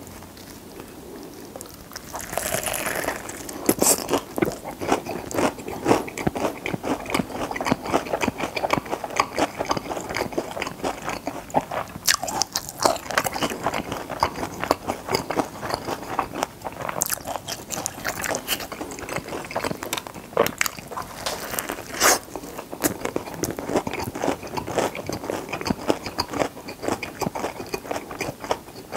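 Close-miked eating of a crispy fried chicken burger: a bite about two seconds in, then steady crunching and chewing of the fried coating, with sharper crunches every few seconds.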